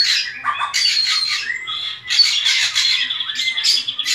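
Black drongo calling in harsh, raspy bursts of chatter mixed with short whistled notes, with a brief break about halfway through.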